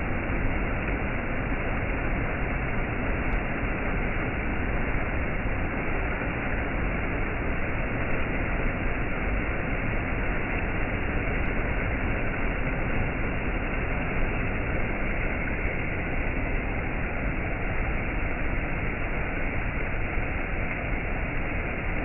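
Small waterfall: stream water pouring over low rock ledges in several cascades, a steady, even rushing noise.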